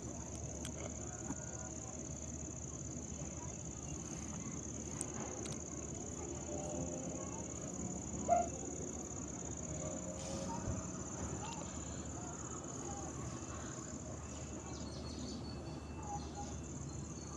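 Steady high-pitched insect chirring, with a brief louder sound about eight seconds in.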